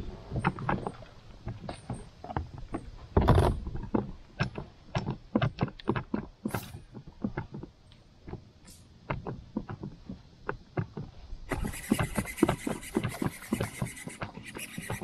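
Irregular knocks and slaps against a plastic fishing kayak's hull, a few a second, from water and the standing angler's shifting weight, with one heavier thump a little over three seconds in. In the last few seconds a steady hiss with a thin whine comes in over the knocks.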